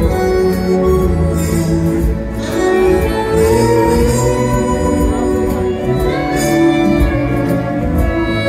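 Instrumental show music with long held notes.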